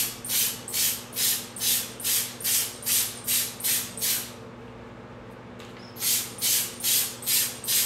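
Small hand-squeezed pump sprayer (a cake decorator's 'bombinha') spraying liquid food colouring: a quick run of about ten short hissing puffs, roughly two and a half a second, then a brief pause and five more puffs near the end.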